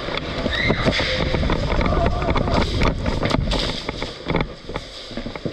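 Rumbling microphone noise and gear rattle as an airsoft player moves quickly with the camera, with many sharp clicks and knocks scattered through it. It gets quieter after about four seconds.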